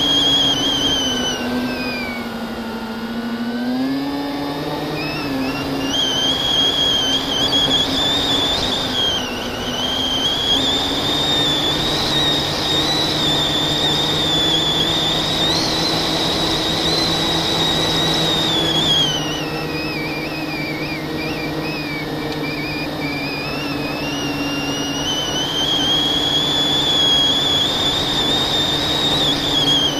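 FPV drone's electric motors and propellers whining. The pitch falls as the throttle eases off about two seconds in and again about two-thirds of the way through, and climbs back each time the throttle opens.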